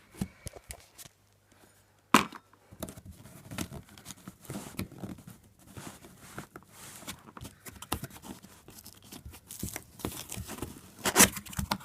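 Cardboard shipping box being torn open, with scratchy tearing and rustling. A sharp knock comes about two seconds in, and the tearing is loudest near the end.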